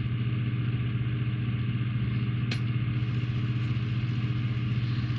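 Steady low hum like an idling engine, with one light click about halfway through.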